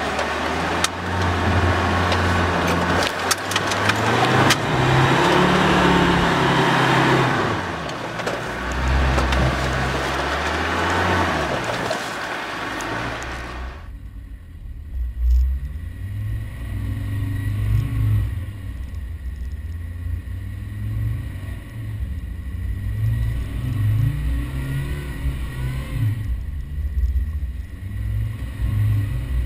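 Land Rover Defender engine driving through soft sand, its note rising and falling as the throttle goes on and off. A loud rushing noise lies over the first half. About halfway through the sound changes suddenly to a cleaner engine note that keeps revving up and down.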